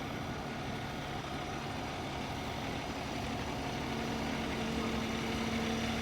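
A vehicle engine idling steadily, a low hum with a few steady tones, over street noise; it grows a little louder toward the end.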